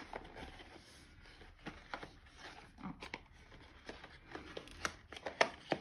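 Small white cardboard box being handled and turned over in the hands: light rubbing and scattered taps and clicks of card, with a couple of sharper knocks near the end.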